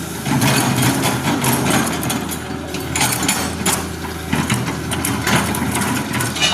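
An old small engine running, going from a steady idle to a louder, rougher run about a quarter second in, with the speed rising and falling unevenly.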